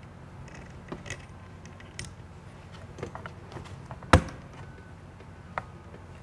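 Small clicks and knocks of metal parts being handled as a rubber-mounted bracket is fitted back onto an ABS pump unit, with one sharper knock about four seconds in.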